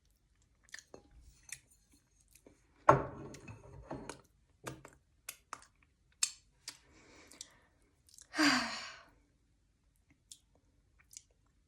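A person eating soft durian flesh: wet mouth clicks and chewing, with a louder noisy burst about three seconds in and a falling sigh of satisfaction about eight and a half seconds in.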